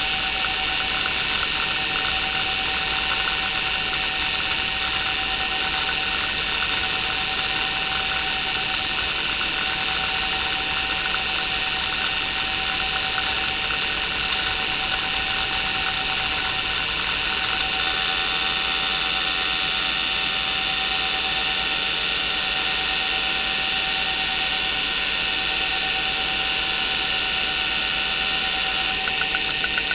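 Maxtor 8051A 41MB 3.5-inch IDE hard drive spinning with a steady whine, its spindle bearings not very good, while the head actuator chatters through rapid seeks in a seek-time benchmark. About two-thirds of the way through, the seek sound changes to a steadier, higher buzz as the test moves to track-to-track seeks.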